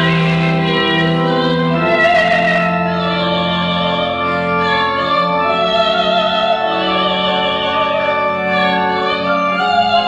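A woman singing solo in an operatic style, her held notes wavering with vibrato, over organ accompaniment that sustains long, steady low notes.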